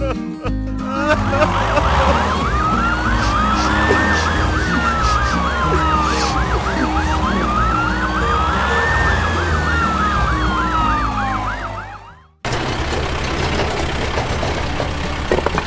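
Emergency-vehicle siren wailing in slow rises and falls, with a faster yelping siren layered over it, above background music. It cuts off about twelve seconds in and a dense, noisy music bed takes over.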